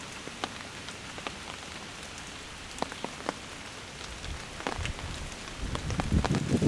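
Rain falling on a tarp overhead: a steady hiss with irregular sharp drop ticks. A low rumble builds near the end.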